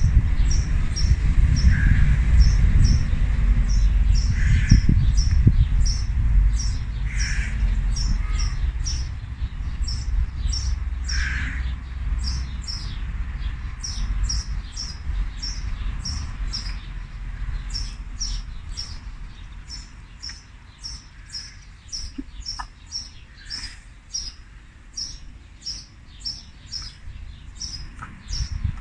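Birds chirping: a short high chirp repeats about twice a second, and a lower call comes every couple of seconds in the first half. Under them is a low rumbling noise that fades out after the middle.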